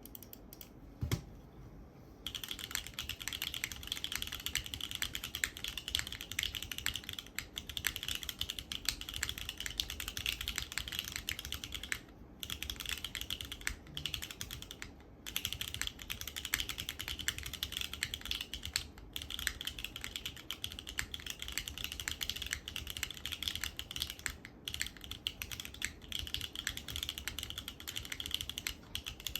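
Typing on a SINGAKBD Kohaku R2 custom mechanical keyboard with lubed Cream Joy frankenswitches (NovelKeys Cream top housings, Gateron CJ stems), a polypropylene leaf-spring plate, GMK keycaps and no foam. A single knock about a second in, then steady fast typing from about two seconds in, with a few brief pauses.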